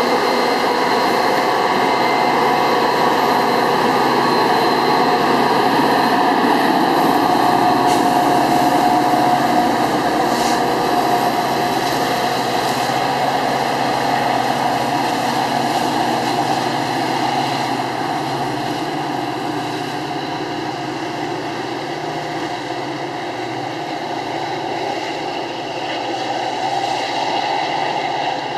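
Metra F40PH diesel-electric locomotive's engine running under power as it pulls away with a commuter train, steady at first and fading gradually over the last third as it draws off.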